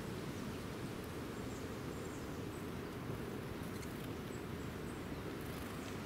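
Steady low outdoor background rumble with a few faint, very high chirps from small birds scattered through it, and a couple of faint light rustles.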